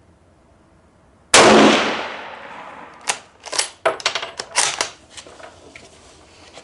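A single loud rifle shot from a Yugoslavian M48 Mauser bolt-action rifle in 8mm Mauser, firing hot Turkish surplus ammunition, with a ringing echo. About two seconds later comes a quick run of sharp metallic clicks and clacks as the bolt is worked to eject the case and chamber the next round.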